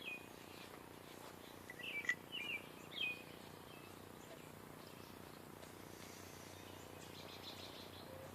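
Faint bird chirps: a few short, quickly falling calls near the start and again around two to three seconds in, over steady low background noise.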